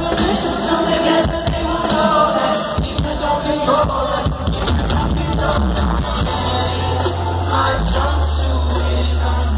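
A live rock band heard from within an arena crowd: a lead vocal over drums, with a deep sustained bass coming in about six seconds in.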